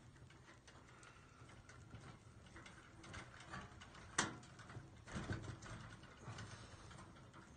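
Faint clicks and rustling as wires are twisted together under a plastic twist-on wire nut, with one sharper click about four seconds in.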